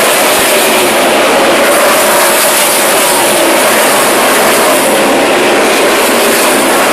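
The V8 engines of NASCAR Cup stock cars racing past on the track, a loud, steady roar of the field that does not let up.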